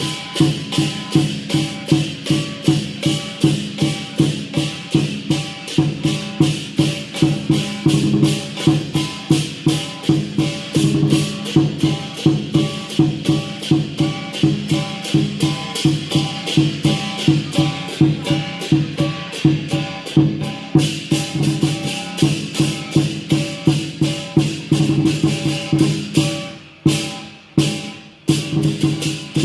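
Lion dance percussion: a drum beating a fast, steady rhythm with clashing cymbals ringing over it, the beat breaking into spaced strokes near the end.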